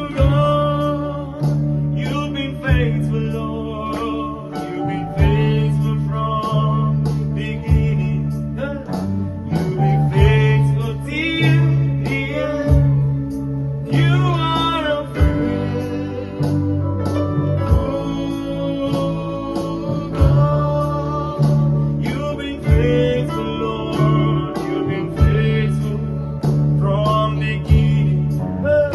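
Gospel worship song: singing over guitar and bass with a steady beat.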